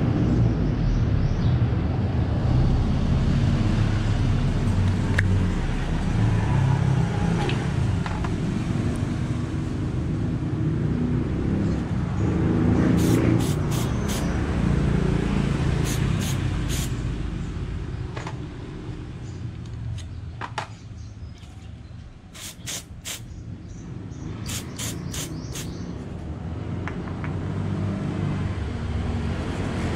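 Low, steady motor-vehicle rumble, with several sharp clicks in small clusters through the middle.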